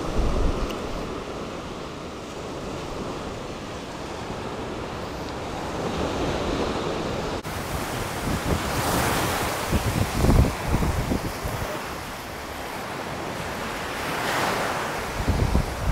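Ocean surf washing onto the beach, with wind buffeting the microphone. The wash swells louder about halfway through and again near the end.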